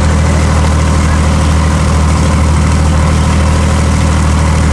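Boat engine running steadily: a loud, even low hum that holds without change.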